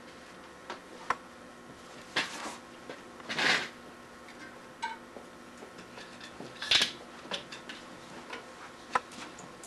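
Clicks, taps and short scrapes of hard plastic against metal as a plastic axle protector is pushed onto a bicycle rear wheel's hub axle beside the cassette. The three loudest scrapes come about two, three and a half, and seven seconds in.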